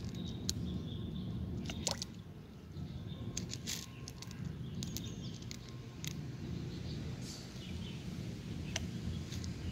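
Light water splashing and dripping, a few scattered plops and clicks over a steady low rumble.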